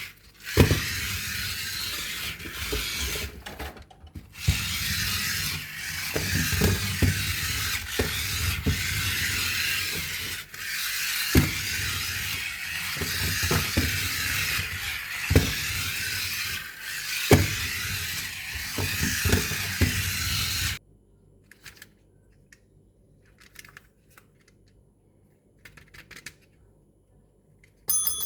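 Toy and packaging being handled: a string of sharp plastic clicks and knocks over a steady hiss, which cuts off suddenly about three-quarters of the way through, leaving only a few faint clicks.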